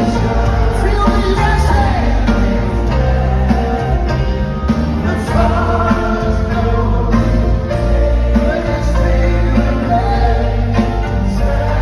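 Live gospel worship music: voices singing over a band with heavy bass and a steady drum beat.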